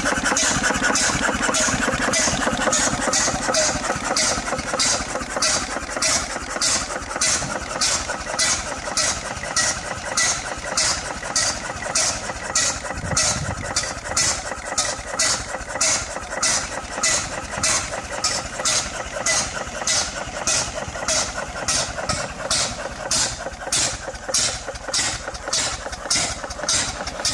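7HP Sunshine vintage stationary engine, a single-cylinder vertical engine, running with a steady even beat of about two exhaust beats a second, on its first run in 30 years.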